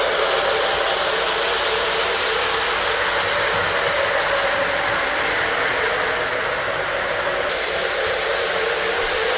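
Lionel O-scale Norfolk Southern Dash 8 diesel model running on its track: a steady mix of the locomotive's electronic diesel-engine sound and the whir of its motor, gears and wheels rolling on the rails.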